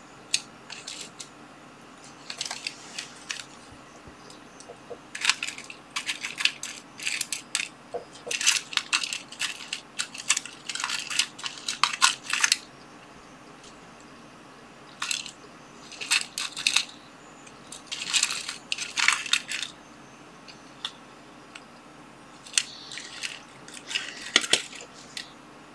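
Small wire offcuts rattling and clicking inside a clear plastic box as it is handled and picked through. The sound comes in short clusters of light clicks with pauses between, busiest in the first half.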